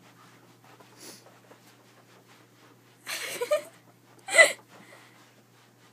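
A person's voice: two short, breathy vocal outbursts, the first about three seconds in and the louder second one about four and a half seconds in, over quiet room tone.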